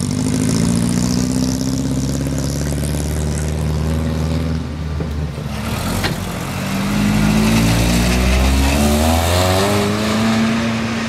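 A Volvo 142's four-cylinder engine running steadily as the car drives off. After a break midway, a Volkswagen Golf Mk2's engine revs up with a rising note as the car pulls away.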